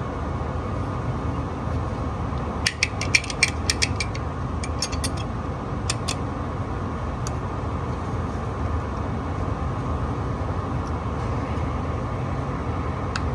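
Small tools and parts being handled, giving a run of sharp clicks and taps between about three and six seconds in, over a steady low hum.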